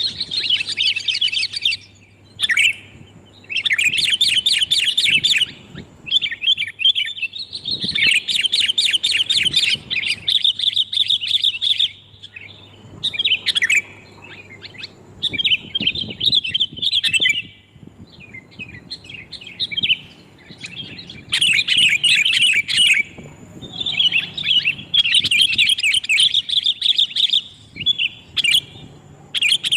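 Sooty-headed bulbuls chattering loudly and clearly in rapid bouts of a second or two, separated by short pauses: a bulbul lure call.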